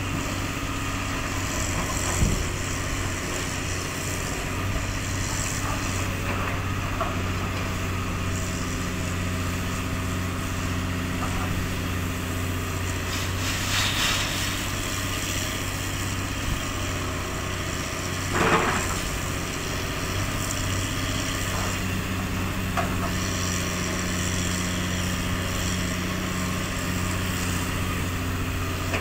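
Komatsu PC200-8 hydraulic excavator's diesel engine running steadily as it digs and loads sand, its note shifting as the hydraulics take up load, with a few sharp knocks along the way, the loudest about two-thirds through.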